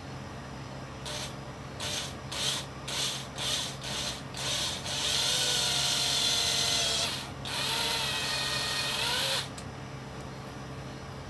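Small electric drill with a 7/64 bit drilling out a plastic heat rivet: a few short pulses, then two longer runs of high motor whine that rises and falls, stopping about two seconds before the end.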